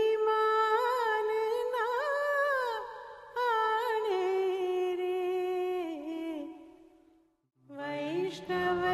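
A solo voice singing long, held notes with ornamented slides and wavers in pitch, unaccompanied at first. It fades away about seven seconds in, then returns after a short gap with a low drone sounding beneath it near the end.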